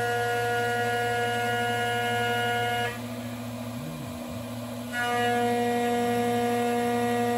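CNC milling machine's end mill facing an aluminium part: a steady multi-pitched cutting whine over the constant hum of the spindle. The whine stops about three seconds in and comes back about two seconds later, leaving only the spindle hum in between.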